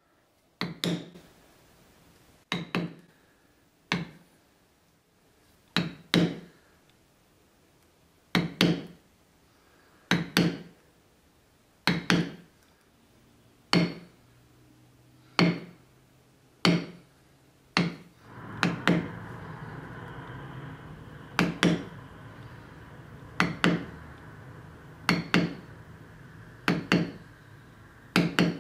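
Mallet blows on a leather stamping tool pressing a pattern into tooled holster leather laid on a stone slab: sharp knocks, mostly in quick pairs, every second or two. A faint steady hum comes in under the strikes about two-thirds of the way through.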